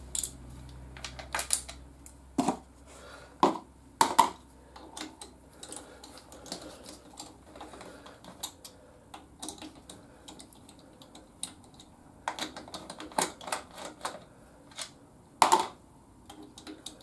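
Irregular clicks and metallic taps of a hand Torx driver working out the Torx 30 bolts that hold the rear fender over a BMW R1200GS's final drive, with a few sharper knocks scattered through.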